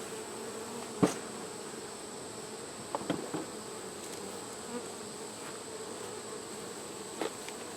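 Honeybee colony buzzing steadily from an open hive, with a sharp knock about a second in and a few fainter clicks later.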